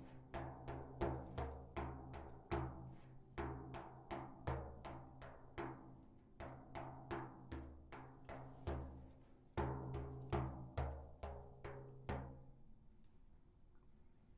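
A deep-toned drum beaten in a steady rhythm, about two to three strikes a second, each stroke ringing low. It stops about twelve seconds in.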